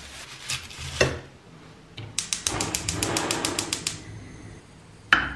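Plastic wrap crinkling as raw hamburger patties are unwrapped. Then a gas hob's spark igniter clicks rapidly, about seven clicks a second for roughly two seconds, as the burner lights. A single sharp knock comes near the end.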